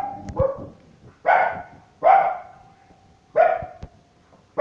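A dog barking in single barks about once a second: a weaker bark near the start, then three louder ones, each trailing off.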